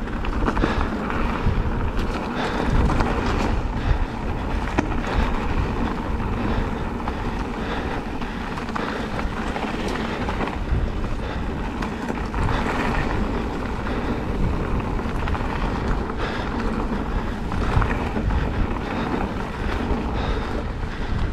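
Specialized Turbo Levo e-mountain bike rolling fast down a rough dirt trail: steady wind buffeting on the helmet-mounted camera's microphone, mixed with constant tyre noise and irregular rattles and knocks from the bike over the ground.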